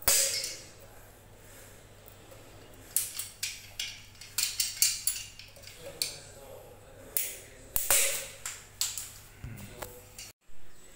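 Steel pliers clicking and clinking against a metal water stop valve fitting as it is gripped and turned: sharp, irregular clicks in clusters.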